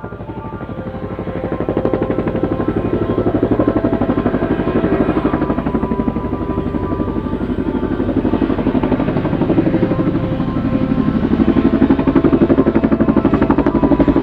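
Helicopter sound effect: fast, steady rotor-blade chop over engine drone, building up over the first two seconds and then holding steady.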